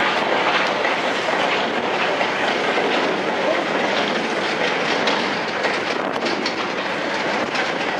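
A train of 16-ton steel mineral wagons rolling past close by: a steady rumble of wheels on rail with clicks and clanks as the wheels pass over rail joints, the clicks coming more often in the second half.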